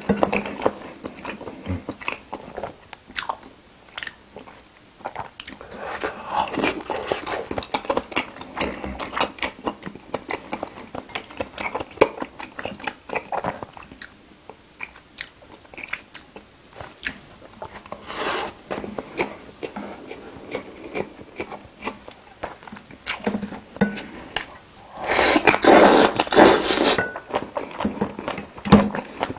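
Close-miked eating of spicy braised seafood: chewing and biting with wet clicks and smacks, with louder bursts about eighteen seconds in and again near the end.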